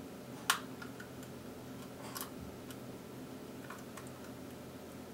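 Small clicks and ticks of plastic lens parts and a small screwdriver being handled while the loosened cover of a Canon EF 50mm f/1.8 II lens is worked free; the sharpest click comes about half a second in, another just after two seconds, with fainter ticks between, over a faint steady hum.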